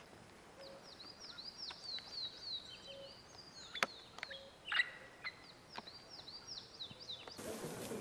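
A bird calling in a rapid series of short, high, hooked notes, about three or four a second. The calls come in two runs with a gap between them, and a couple of sharper, harsher notes fall in that gap.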